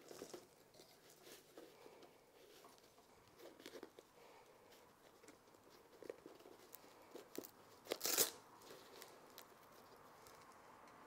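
The Velcro (hook-and-loop) top straps of a Tern Cargo Hold 28 pannier are being worked around a bike's rear rack. There is quiet fabric rustling and small clicks, and a short Velcro rip about eight seconds in.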